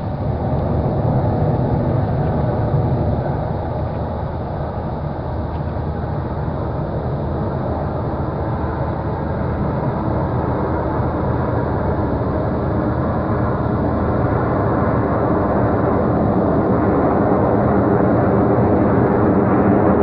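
Vehicle engine running steadily, a continuous low hum that grows slightly louder toward the end.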